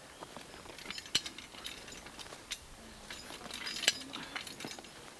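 Hi-Lift jack being pumped to drag a chained log: sharp metal clicks from the jack's climbing mechanism with the steel chain clinking, a loud click roughly every second and a half, the loudest about four seconds in.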